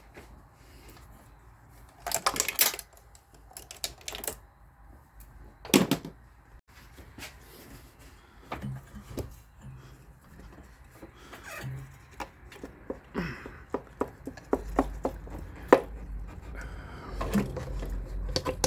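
Hands handling small parts and tools: a scattering of sharp clicks and knocks, with louder clatters about two and six seconds in and a quicker run of clicks through the second half.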